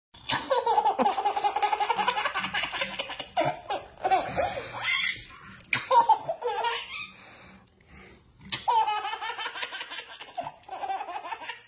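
A small child laughing hard in long fits of quick, high-pitched giggles, with a short lull about two-thirds of the way in.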